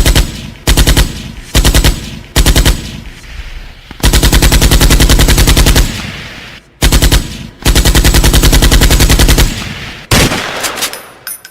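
Machine-gun sound effect with heavy bass, played very loud as a DJ drop: four short rapid-fire bursts, then two longer runs of about two seconds each with a short burst between them, ending in a fading noisy tail.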